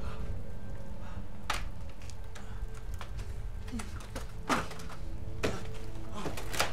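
A steady low, droning hum with a few held tones under it, and four sharp knocks or clicks at uneven intervals, the loudest about halfway through.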